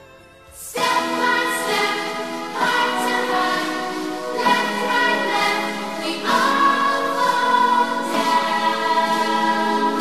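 Music: after a brief near-quiet gap, a slow ballad begins with long held chords and choral singing, the chords changing every couple of seconds.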